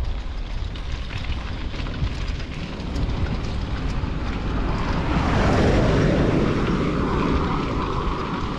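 A car passing on a dirt road, its engine and tyre noise swelling to a peak about five to six seconds in and then fading off slowly, over a steady rumble of wind on the microphone.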